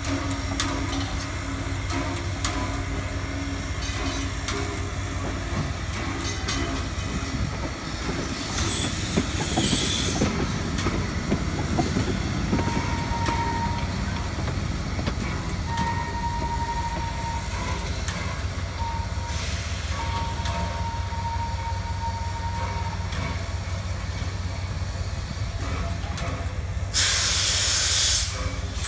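Frisco 1630, a 2-10-0 steam locomotive, standing with steam up: a steady low rumble under hissing steam, with short bursts of hiss about 9 and 20 seconds in. Near the end there is a loud hiss of steam lasting about a second.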